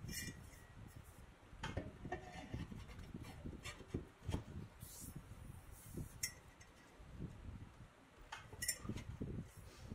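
Scattered metal clinks and knocks from handling a cast-iron drill press base and its steel column: the column is set into the base's socket, then the base is slid across the bench, with some light rubbing between the clinks.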